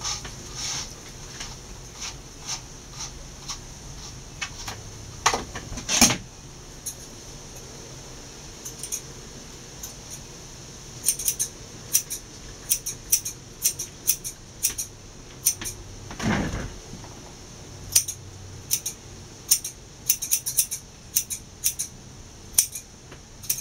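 Grooming scissors snipping a dog's coat: short sharp metallic clicks, a few at a time at first and then in quick irregular runs, with a couple of duller knocks.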